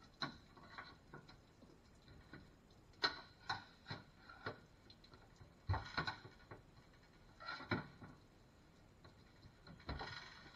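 Scattered knocks and clinks of hands and tools handling a booster pump on a stainless-steel deck, about eight separate strikes, the loudest around three and six seconds in.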